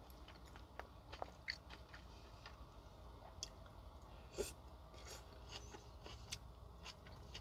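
A person chewing a mouthful of fresh salad with lettuce, tomatoes and nuts, close to the microphone: quiet wet chewing with small crunches and scattered mouth and fork clicks, one sharper click about four and a half seconds in.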